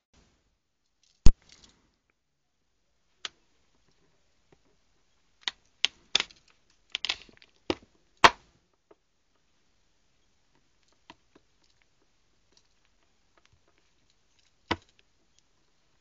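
Sparse sharp clicks and short scraping taps from a Victorinox CyberTool 34 multitool being handled, its tool tip worked against a small part. A loud click about a second in, a quick run of clicks and scrapes in the middle, and one more click near the end.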